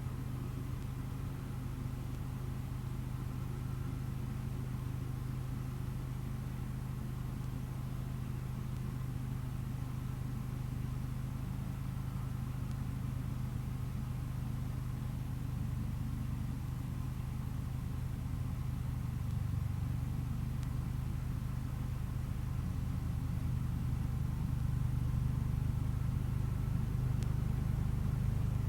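Engine of a 1975 Case 224 garden tractor running steadily with its snow thrower, a constant low hum that grows slightly louder near the end.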